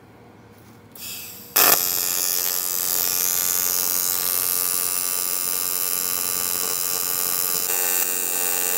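AC TIG welding arc on 2.5 mm aluminium plate, at 100 A and 90 Hz AC frequency: a short hiss about a second in, then the arc strikes sharply and buzzes steadily for the rest of the time.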